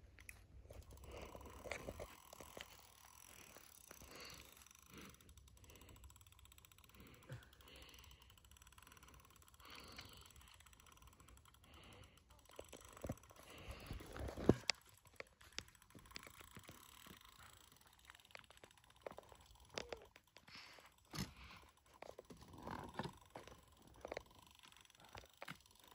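Faint, irregular clicking and rustling from a carp rod and reel being worked while a hooked fish is played, with one louder knock about halfway through.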